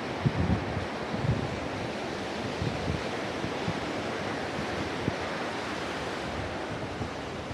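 Sea surf washing on a beach under a steady hiss of wind, with gusts buffeting the microphone in short low rumbles now and then.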